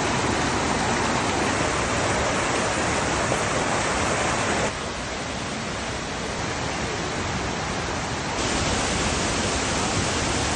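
Steady rushing water, an even roar across all pitches. It drops suddenly to a slightly lower, duller level about halfway through and returns suddenly near the end.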